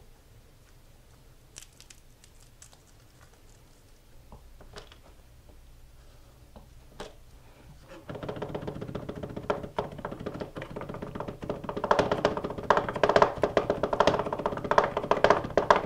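Faint ticks from garlic cloves and papery skins being handled, then about halfway through background music comes in with a rapid run of knife chops on a cutting board as garlic is minced.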